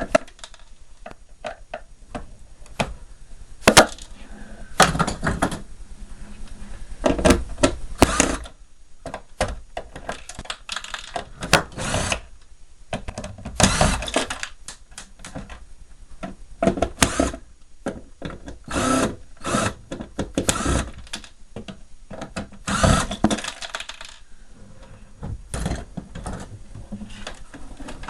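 Irregular clicks, knocks and rattles of hand tools and plastic parts as an electronic mini fridge is being taken apart.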